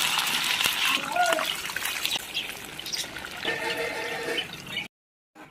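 Raw chicken pieces sizzling in hot oil in a pan. The sizzle is loudest at first and eases off over the next few seconds, then cuts off abruptly near the end.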